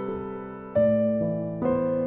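Background music of slow keyboard notes, a new chord struck about three-quarters of a second in and another near the end, each left to ring and fade.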